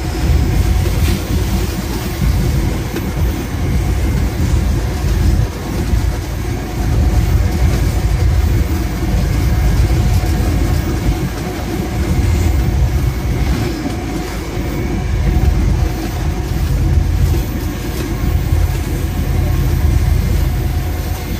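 GE U20C (GEU-20 class) diesel-electric locomotive running along the line, heard from its cab: a steady deep engine rumble mixed with wheel-on-rail noise.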